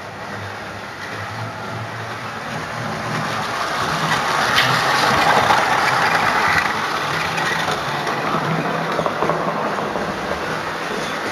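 Model train running along the track, its motor and wheels making a steady rumble with small clicks. It grows louder as the train passes close by about five seconds in, then fades as it moves away.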